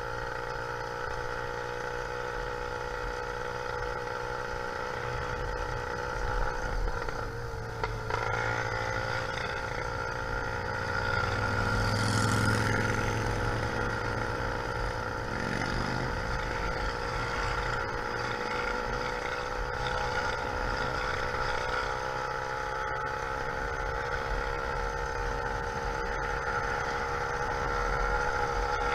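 Small YD100 two-stroke engine on a motorized bicycle running at a steady speed, with a brief dip in pitch about seven seconds in.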